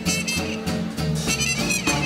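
Small-group swing band playing live: saxophone and trumpet over piano, archtop guitar, upright bass and drums, in a steady swing groove.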